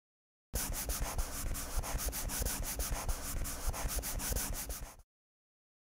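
Felt-tip marker scribbling back and forth on paper, colouring in an area. It is a scratchy rubbing of many quick strokes that starts about half a second in and stops abruptly about a second before the end.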